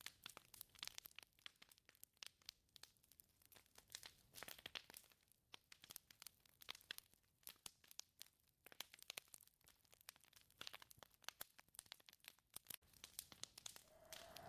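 Faint, irregular crackling: sparse sharp clicks and short crackles come in uneven clusters, with no steady tone beneath them.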